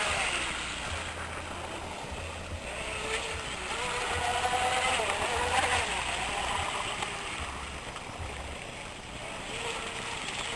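Electric radio-controlled hydroplane running on the water: a high electric-motor whine that wavers up and down in pitch. It fades through the middle as the boat moves off and grows louder again near the end.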